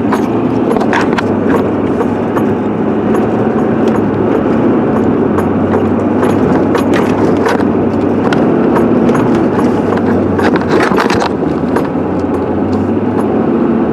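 A pickup truck driving on a snowy road: steady engine hum and road noise, with scattered clicks and knocks.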